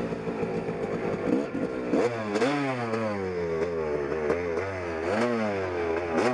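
Single-cylinder two-stroke engine of a 1988 Yamaha YZ250 dirt bike with an aftermarket exhaust, running steadily for about two seconds, then revved in repeated quick blips, its pitch rising and falling each time.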